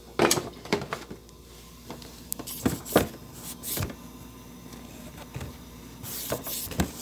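Handling noise and kitchen clatter: a string of separate knocks and bumps as the phone is moved and set down facing a steel pot on a gas burner, with a rustling cluster about six seconds in as a hand passes close to it. A faint steady hum runs underneath.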